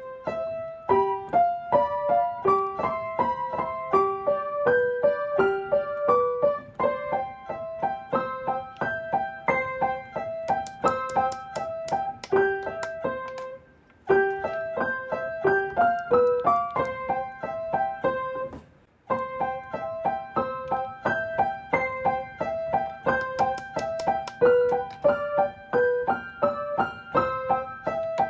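Background piano music: a steady, even run of single notes, broken off briefly twice.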